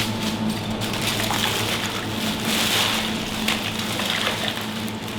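Liquid splashing and gushing in a bathtub full of warm gelatine mixture as ice and cold water are poured in to cool it so it will set, over a steady low hum.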